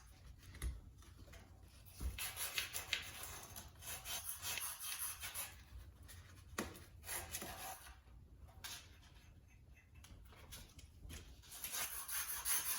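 Irregular scratching and rubbing with a few light clicks, from hands working the metal hinge parts of a wood-stove door.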